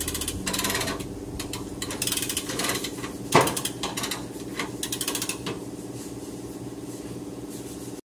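Chassis-straightening rig pulling a bent car chassis with a chain: a steady mechanical hum under repeated metal clicks and clanks, with one sharp knock about three and a half seconds in.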